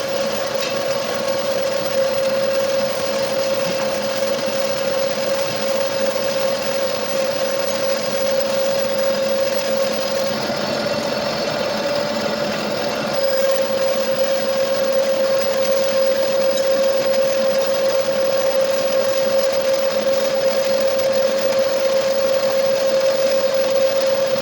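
Metal lathe running with a steady whine over a noisy machining hiss; the whine shifts slightly in pitch for a few seconds about ten seconds in, then settles back.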